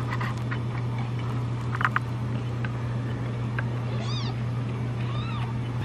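Kittens meowing: two short meows, each rising and then falling in pitch, about four and five seconds in, over a steady low hum.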